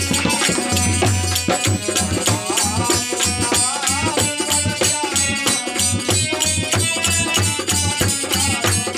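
Folk devotional bhajan music: a dholak hand drum beaten in a fast, even rhythm under the sustained chords of a harmonium, with hand-clapping and a voice singing in places.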